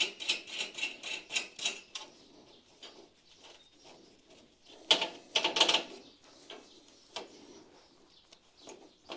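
A steel threaded rod and nut clicking and rattling against the perforated steel plates of a welding table as the rod is worked through the holes and the nut is spun on: quick light clicks for the first two seconds, then a louder clatter of metal about five seconds in, with single ticks between.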